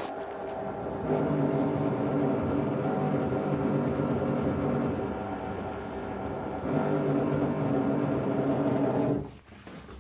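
LG F14A8RD washer dryer giving off a steady-pitched droning hum that swells twice, then cuts off about nine seconds in. The owner takes the hum for a defect, the same one that a service technician repaired once under warranty.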